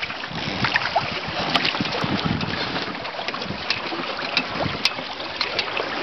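Water splashing and slapping against the hulls of a WindRider trimaran under sail, with steady wind blowing over the microphone and many small sharp splashes throughout.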